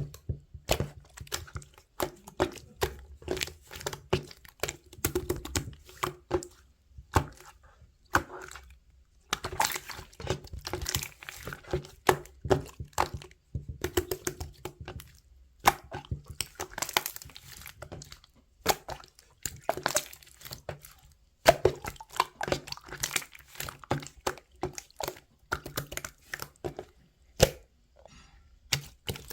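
Close-up handling noise: irregular crackling, crinkling and sharp clicks, in clusters with brief pauses.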